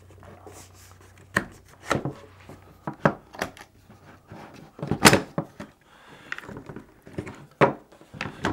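Handling noise from a CAA Roni carbine kit being moved about on a wooden table: a series of separate clicks and knocks from its polymer and metal parts, the loudest about five seconds in.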